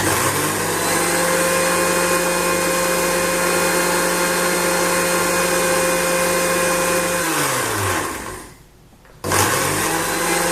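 Electric mixer grinder running, grinding coriander seeds into a fine powder. About seven seconds in the motor spins down with falling pitch and stops. A second later it is switched on again and runs back up to speed.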